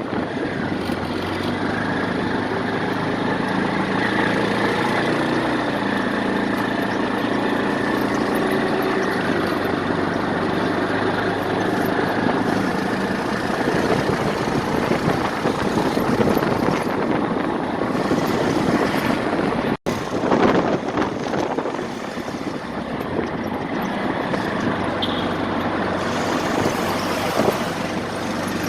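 An engine running steadily at idle over a dense background noise, with a sudden break in the sound about twenty seconds in.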